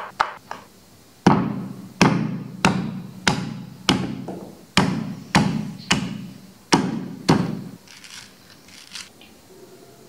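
A stone pestle pounding a lemongrass stalk on a stone mortar to bruise it: about ten heavy, evenly spaced thuds, one every two-thirds of a second. Just before them come the last two knife chops through red chillies on a wooden board.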